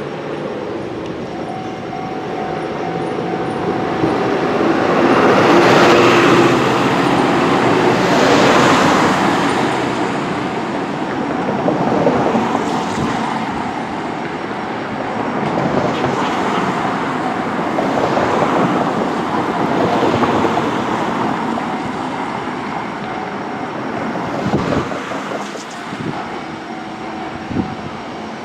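Hankai Tramway streetcar No. 607 running along its track: steady wheel and running noise that swells to its loudest about six to nine seconds in, with a few sharp clicks near the end.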